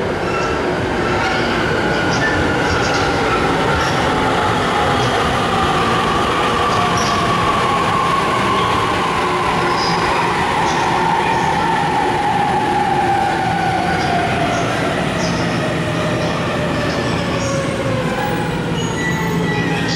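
Electric commuter train on the JR Takasaki Line, its motor whine falling smoothly and steadily in pitch over a constant rumble of wheels on rail, as the train slows.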